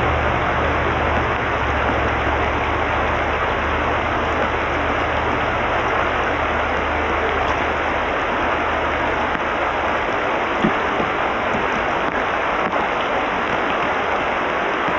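Rushing water of a rocky creek's riffles, a steady hiss, with a low rumble underneath that fades out about nine seconds in. One small knock comes about ten and a half seconds in.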